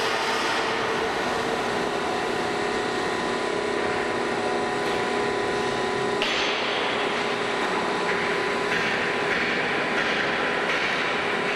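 Daido Machinery plate rolling machine running as it bends a thick steel plate: a steady mechanical hum with a constant whine over a broad hiss, turning harsher and hissier about six seconds in.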